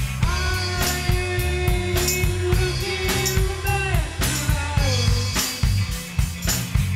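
Psychedelic rock band playing live on drum kit, bass and electric guitars, with a sung line of long held notes that slides down in pitch about five seconds in.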